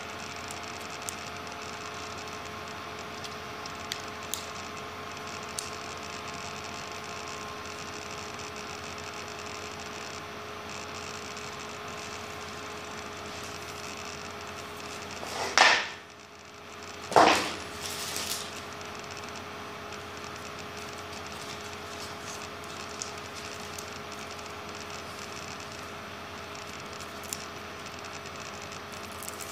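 A steady hum of a few held tones, with faint clicks of the phone being handled. Near the middle come two short, loud brushing noises about a second and a half apart.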